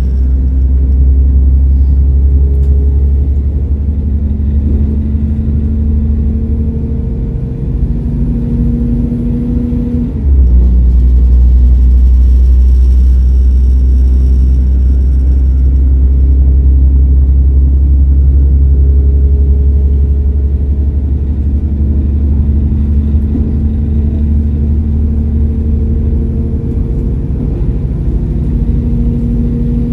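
Class 172 Turbostar diesel multiple unit's underfloor diesel engine and ZF transmission under power, heard inside the carriage: a deep, steady rumble with a whine that rises in pitch as the train gathers speed. About ten seconds in, the whine drops away and the rumble surges back after a brief dip, a gear change, and the whine then climbs again.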